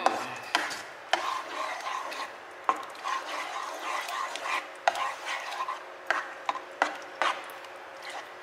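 A spoon stirring thick, chunky tomato sauce in a frying pan: wet sloshing and scraping against the pan, with scattered short clicks.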